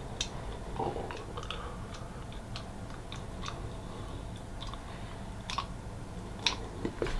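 Clear plastic aligner tray being pressed onto the upper teeth with the fingers: faint, scattered small clicks and wet mouth sounds as it fails to seat fully.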